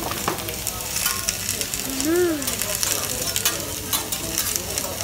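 Food sizzling on a hot teppanyaki griddle, with short clicks and scrapes of metal spatulas on the steel plate. A brief rising-then-falling voice sound comes about two seconds in.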